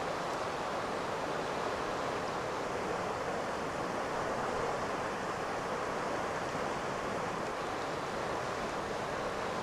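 Steady rushing road and wind noise of a car driving, heard from inside the cabin.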